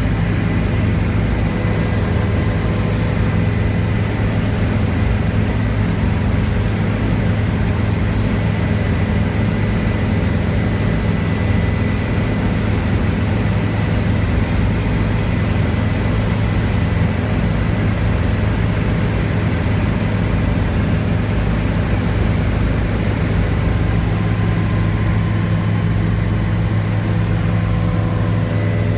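Helicopter in steady flight heard from inside the passenger cabin: a loud, constant low drone of rotor and engine with a thin steady high whine over it.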